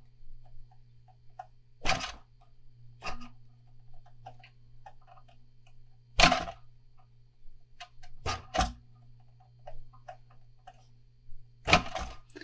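Razor blade scraping and picking at the cured epoxy finish of a fishing rod to cut out a decal's edges: scattered sharp clicks and short scrapes, a handful louder than the rest.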